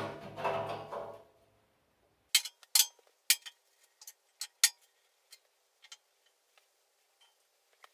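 Sharp metallic clinks and clicks, about eight in a few seconds followed by a few fainter ones: a steel pipe flange and fittings being handled and set down on the steel drum of a wood gasifier.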